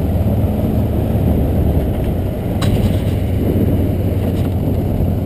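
Off-road motorcycle engine running steadily at low trail speed, with rumble from the bike moving over the dirt track. A sharp click about two and a half seconds in.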